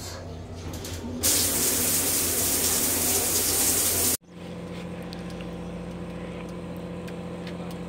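Shower head spraying water, a loud steady hiss that starts about a second in and cuts off suddenly about three seconds later. A steady low mechanical hum runs underneath and carries on after.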